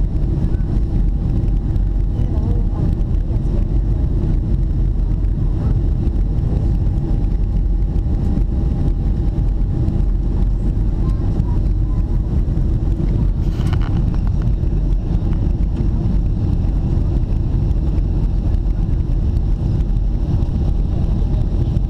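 Steady low rumble of a jet airliner's cabin on approach: engine and airflow noise, with a faint steady tone above it. One brief click about two-thirds of the way through.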